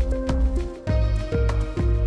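Background music with a steady beat and a strong bass line; the chords change about a second in.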